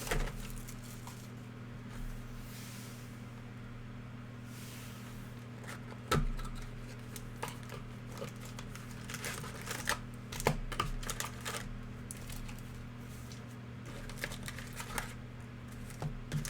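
Hands unwrapping and opening a sealed trading-card hobby box: plastic shrink wrap crinkling and tearing, with scattered clicks and taps of cardboard being handled. A steady low electrical hum runs underneath.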